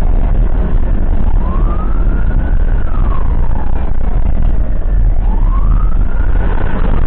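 Ambulance siren on a slow wail, its pitch rising and falling about once every four to five seconds, over the heavy low rumble of the moving vehicle.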